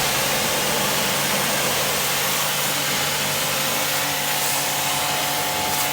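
A motor-driven machine running steadily: a constant hum with a hiss over it, unchanging throughout.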